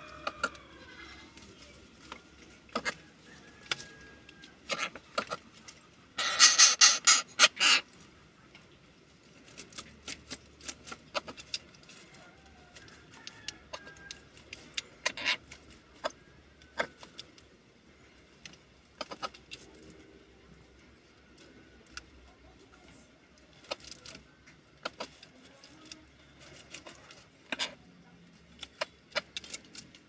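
Greater coucal pecking at and beating a millipede against the wooden floor among empty snail shells: scattered sharp taps and clicks, with a loud quick clatter of knocks about six to eight seconds in.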